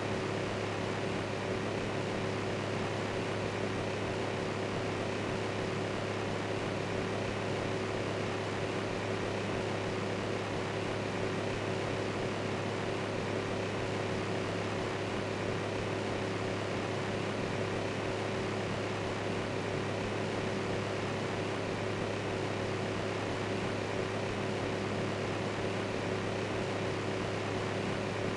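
Electric fan running steadily: an even whirring rush with a constant low hum.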